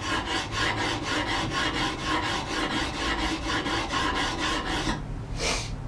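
Coarse side of a wet DMT diamond sharpening plate scraping back and forth along the steel bevel of a hewing hatchet, in quick even rasping strokes. The strokes stop about five seconds in.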